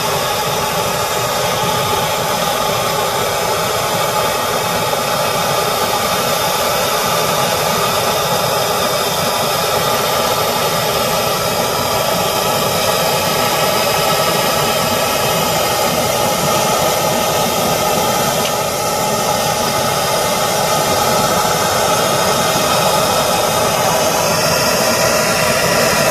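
Handheld gas torch with a brass nozzle burning steadily: a loud, even hiss of the flame playing on a copper pipe joint, heating it for soldering.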